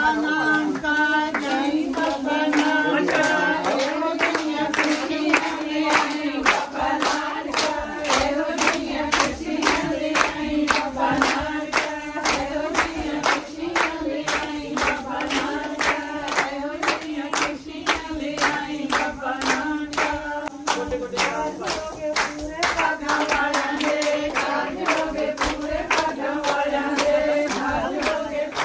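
A group singing Punjabi boliyan together, over steady rhythmic hand-clapping that keeps the beat for giddha.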